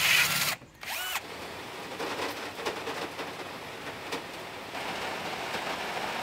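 A Bosch cordless drill with a hole saw cuts into plywood and whines briefly as its speed changes. From about a second in, steady rain falls on the VW T3 bus's windows and body, heard from inside the cab, and grows heavier about five seconds in.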